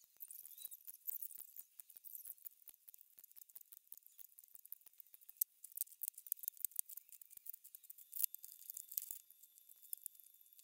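Faint crackling, clicking and short rips of duct tape being pulled off the roll and pressed onto a plastic sandbox hull.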